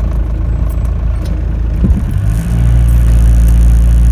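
Motorhome engine and road noise heard from inside the cab while driving, a steady low hum with a brief knock just under two seconds in; about halfway through the engine note grows louder and steadier.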